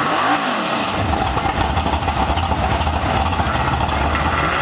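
1993 Chevy pickup's engine running steadily while the truck sits at the line, with a deep low rumble that sets in about a second in.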